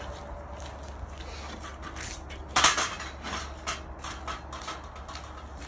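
Steel scaffolding parts clanking: one loud metallic knock about two and a half seconds in, followed by several lighter clinks.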